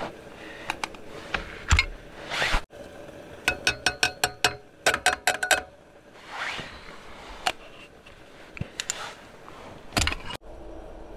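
Handling of cooking gear: two quick runs of light, ringing taps, about six a second, like a metal spoon clinking against a container. Between them come scattered clicks and the soft rustle of a nylon down jacket.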